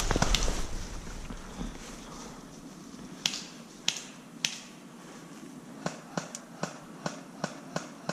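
Airsoft gun firing single shots, heard as sharp snaps: three about half a second apart, then a quicker run of about seven.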